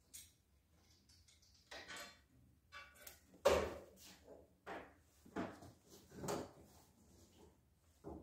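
Metal parts of a stopped table saw being handled and adjusted: a string of short clunks and sliding scrapes, the loudest about three and a half seconds in.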